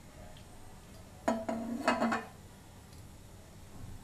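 Kitchenware clinking against a ceramic mixing bowl as a tablespoon of oil is tipped in: a couple of sharp knocks a little over a second in, then more clinking with a brief low ring, all over within about a second.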